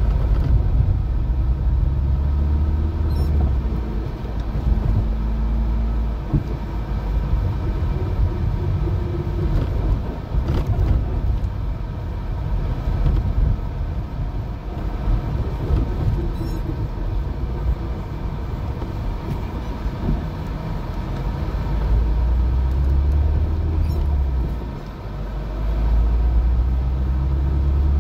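Alfa Romeo 75 driving in town, heard from inside the cabin: engine rumble with road and tyre noise. The engine pulls harder near the start and again near the end, easing off briefly a few seconds before the end.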